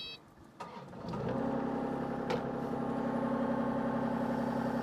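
Excavator's diesel engine starting about a second in, catching quickly and settling into a steady idle.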